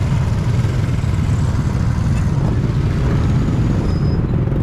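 Motorcycle and scooter engines running at low speed in a slow-moving group, a steady low rumble with road noise.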